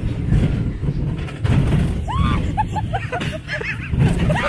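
Fairground ride moving with a steady low rumble. From about two seconds in comes a quick run of short high-pitched calls, each rising and falling.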